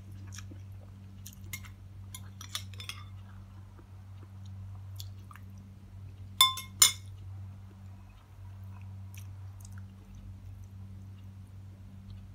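Someone eating rice with a spoon: quiet chewing and small clicks, then two sharp clinks of a metal spoon against a ceramic plate about six and a half seconds in, half a second apart and ringing briefly. A steady low hum runs underneath.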